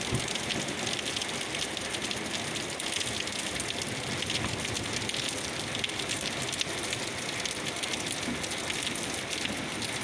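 Steady downpour of rain falling on leaves and the ground, an even hiss.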